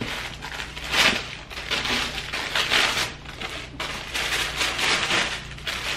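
Tissue paper crinkling and rustling in irregular bursts as it is pulled aside inside a cardboard shoe box.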